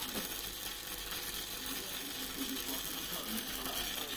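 Steady sizzling hiss with fine crackling from high-voltage equipment left running.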